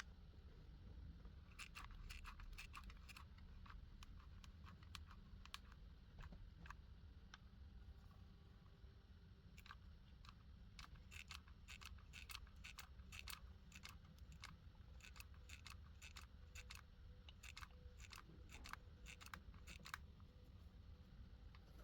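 Faint, irregular clicks and snips of small parts being handled, in bunches, over a low steady hum.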